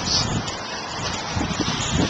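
Wind buffeting the camera microphone, a steady rushing noise with a low rumble.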